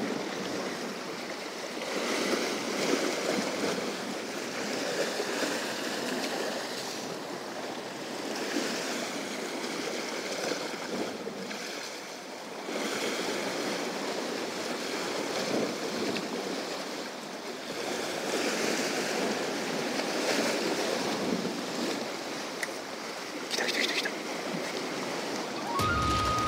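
Sea waves washing and surging against the rocks just below, rising and falling in swells, with wind on the microphone. Just before the end a music jingle begins.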